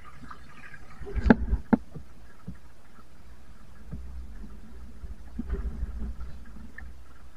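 A few sharp knocks and clatters about a second in, then low, uneven rumble from wind on the microphone.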